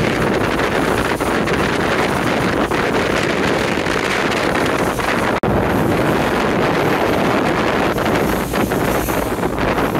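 Wind buffeting the microphone over the rush of water along a moving boat's hull at sea, loud and steady, with a brief break about halfway through.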